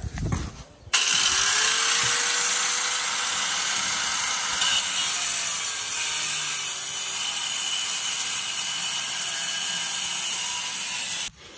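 Handheld angle grinder starting up about a second in, its motor whine rising as it comes up to speed, then grinding steel steadily, throwing sparks, until it stops near the end.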